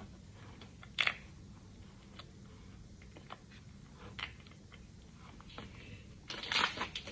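Handling of a Sonny Angel blind box and small plastic figure: scattered light clicks, taps and crinkles. One louder crinkle comes about a second in, and a denser run near the end.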